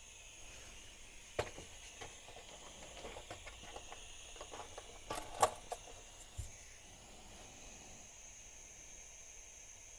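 Gas soldering iron being handled: a run of small plastic clicks and taps, loudest about five seconds in, over a faint steady hiss.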